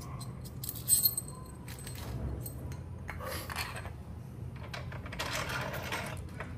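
Metal clinks from a motorcycle frame slider and its long mounting bolt as they are handled, with one sharp clink about a second in. Later come two stretches of rubbing and scraping as the slider is fitted through the fairing opening onto the frame mount.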